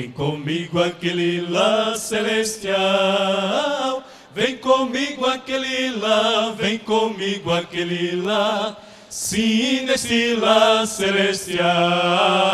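Male vocal quartet singing a gospel hymn in harmony into handheld microphones, with short breaks between phrases about four seconds in and again near nine seconds.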